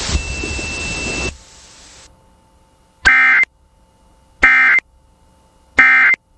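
Emergency Alert System end-of-message data bursts: three short, harsh, buzzing digital bursts about a second and a half apart, signalling the end of the alert. Before them, radio hiss cuts off about a second and a half in.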